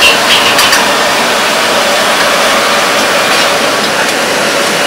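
Steady loud rushing noise of a busy restaurant kitchen, with a few light clinks about half a second in.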